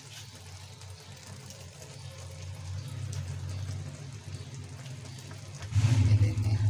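Steady low rumble with a faint hiss over it, growing louder near the end.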